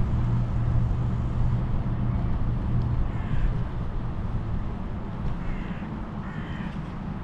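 Steady low rumble of a bicycle rolling along a paved path: wind and road noise on the rider's camera microphone. A few short calls sound over it, one near the middle and two close together toward the end.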